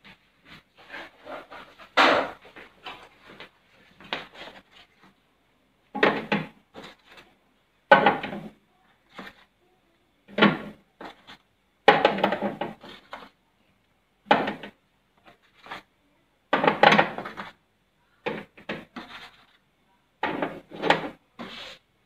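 Eggs being picked out of a pulp egg tray and set one by one into the plastic egg holders of a fridge door: short knocks and scrapes of shell on plastic and cardboard, coming every second or two at uneven intervals.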